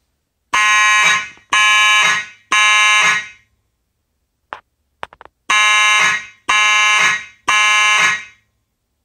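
Simplex 2901-9833 fire alarm horn sounding in a temporal-three pattern: three blasts, a pause of about two seconds, then three more blasts. The system is in alarm from a pulled manual pull station. A few faint clicks fall in the pause.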